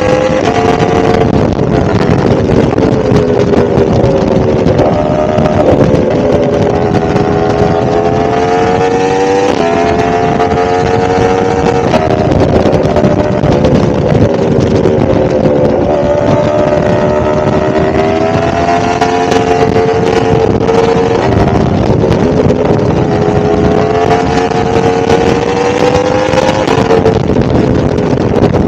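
A 1000cc motorcycle engine running under way on a ride, its pitch slowly rising and falling with the throttle, with a few sudden steps in pitch.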